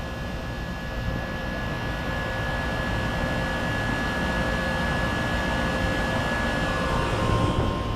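Refrigeration condensing unit with a Copeland reciprocating compressor running steadily just after start-up, its compressor and condenser fan giving a continuous hum and rush with a high whine; near the end the whine shifts to a lower pitch.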